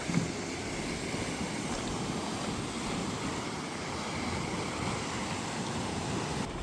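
Steady rushing water, waterfall or surf on the beach, with wind buffeting the microphone. A brief knock sounds just after the start.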